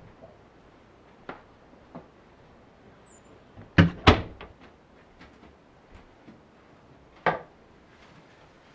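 Bathroom door pushed shut: two sharp knocks about a third of a second apart, the door meeting the frame and the latch catching. A few light knocks come before it and one more loud knock follows about three seconds later.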